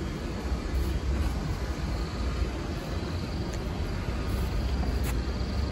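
Steady low rumble of wind on a handheld microphone, with a faint high insect drone coming in about halfway through.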